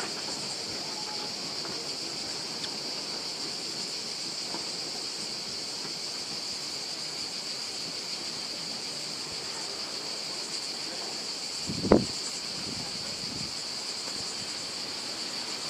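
Cicadas buzzing in a steady, high-pitched chorus, with a single brief thump about twelve seconds in.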